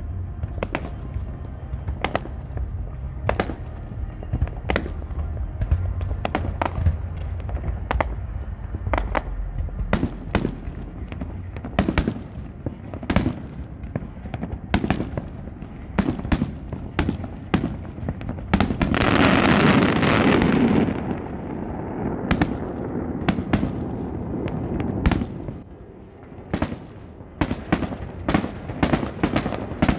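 Aerial fireworks shells bursting in a steady string of sharp bangs, one or two a second. About two-thirds of the way through, many bursts run together into a dense, louder stretch. After a short lull the bangs pick up again near the end.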